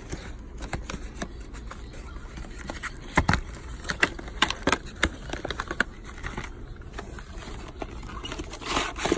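Cardboard power bank box being handled and its inner tray slid out: scattered clicks, taps and scrapes, with the loudest knocks about three to five seconds in and again near the end.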